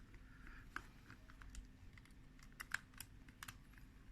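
Faint, scattered small clicks and taps of small parts being handled as a handle connector is taken apart, about half a dozen light clicks over a few seconds.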